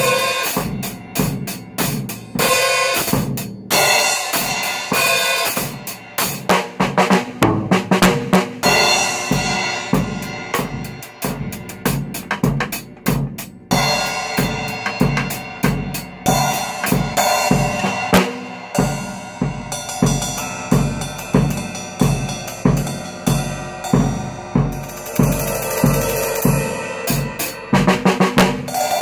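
Drum kit played continuously: kick drum, snare and cymbals in a steady stream of strokes, with the large cymbal nearest the microphone being struck and ringing.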